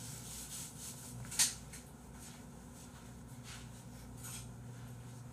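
Quiet room tone with a low steady hum, broken by one short sharp click about a second and a half in and a few fainter ticks.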